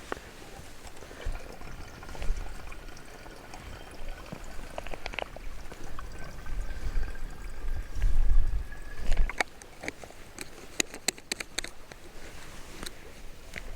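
Liquid being poured into a container, with a faint tone that rises slowly as it fills. A low rumble comes about eight seconds in, and a quick run of sharp clicks follows near the end.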